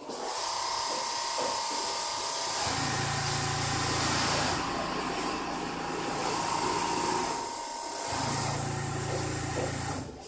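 Richpeace multi-head computerized template sewing machine running, its sewing heads stitching and its template frames driven along the tables. A deeper hum joins twice, for about two seconds each, about three seconds in and again about eight seconds in.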